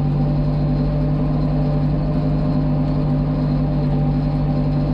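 Farm tractor's diesel engine running steadily under load in low-range fourth gear while pulling a heavy disc harrow through dry ploughed ground, heard from inside the cab.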